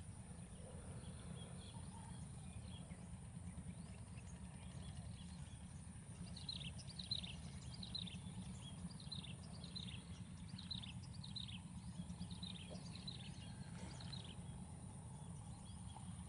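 A flock of lesser whistling ducks calling: a run of short, high whistles, each falling in pitch, about two a second, starting about six seconds in and stopping near the end. A steady low rumble sits underneath.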